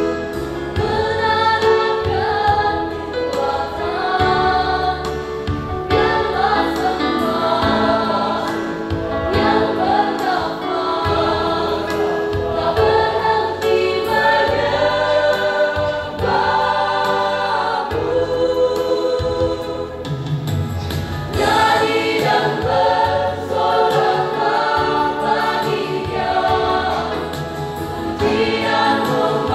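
Mixed youth church choir singing a gospel song, several voices together in harmony without a break.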